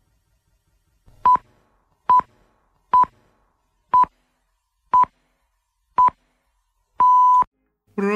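Electronic beeps at one steady pitch: six short pips about a second apart, then a longer tone lasting about half a second, like a time-signal countdown. Music starts right at the end.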